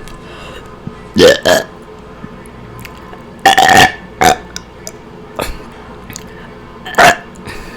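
A woman burping on command, several loud burps in a row: two short ones about a second in, a longer one at about three and a half seconds followed quickly by a short one, and another near the end.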